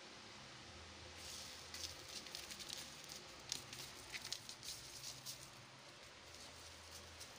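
Faint, scattered light clicks and taps of a cat's claws and paws on a tiled floor as it bats and pounces at a cockroach, in small clusters, over a faint low hum.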